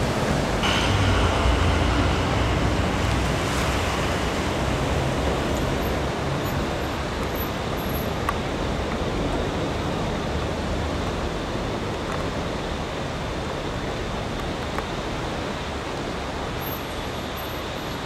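Steady rushing noise of a flooded river's fast brown water, with a low rumble during the first few seconds; the noise eases slightly toward the end.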